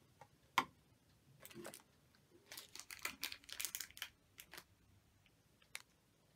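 One sharp knock about half a second in, then irregular crinkling and rustling of the plastic packaging of a pencil sharpener as it is picked up and handled, with a few light clicks near the end.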